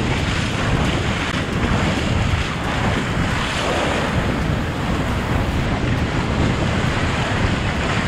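Steady wind buffeting the microphone, over the wash of surf.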